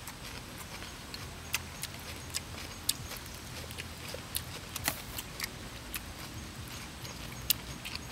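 Irregular small sharp clicks and smacks while cooked snails are eaten: shells clicking in the hand as the meat is picked out with a toothpick, and chewing.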